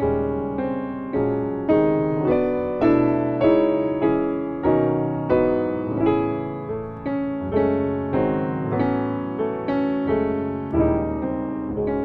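Background music: a gentle piano melody, each note struck and fading, a little under two notes a second.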